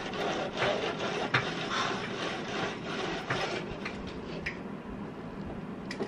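Changanae wood-foam venetian blinds being let down on their cords: the slats clatter and rustle together with many sharp clicks for about three and a half seconds, then a few lighter clicks.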